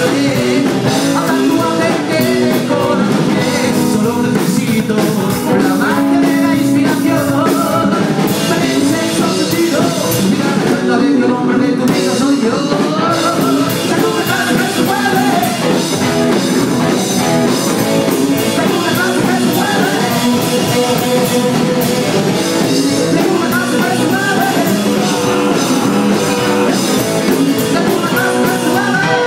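Live rockabilly band playing: a male singer over a hollow-body electric guitar, upright double bass and a drum kit.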